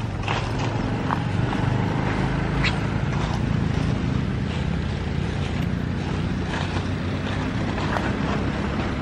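A steady low motor drone, with a few faint clicks scattered over it.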